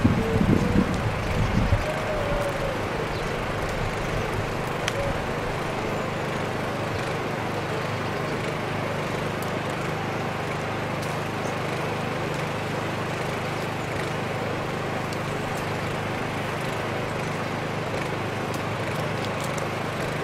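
Steady, even background noise of open-air ambience, with a few low rumbling bumps in the first two seconds.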